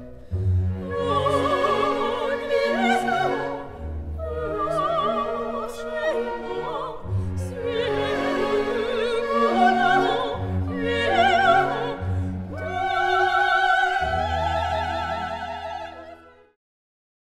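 Orchestral music with an operatic singing voice, the held notes wavering with vibrato over a steady bass line; it fades out near the end.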